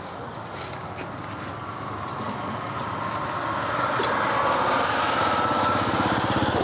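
A vehicle engine passing close by, growing steadily louder over the first few seconds and staying loud near the end.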